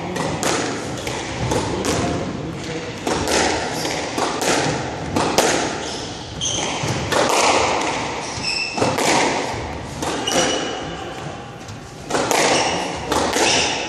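Squash rally: a quick, irregular run of sharp hits as the ball is struck by rackets and smacks off the front wall and the wooden floor, each ringing briefly in the court. Short high squeaks of court shoes on the hardwood floor come a few times.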